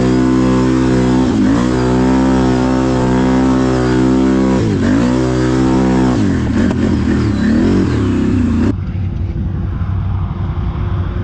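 Can-Am ATV engine revved hard and held high, the revs dipping sharply and climbing back twice, then wavering unevenly; about three-quarters in it switches abruptly to a lower, rougher, duller engine note.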